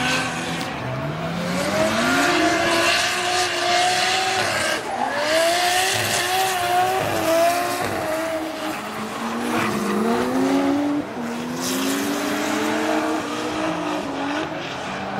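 Pro drift cars sliding through a corner, engines revving up and falling back again and again, with tyres squealing.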